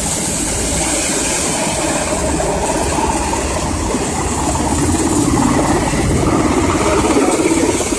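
Military helicopter hovering close by: a loud, steady rotor and engine noise.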